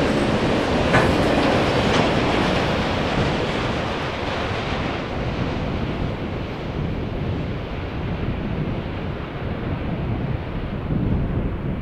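BNSF freight train cars rolling past on the rails, with two sharp wheel clicks about a second apart near the start. The rolling noise fades and dulls as the train moves away.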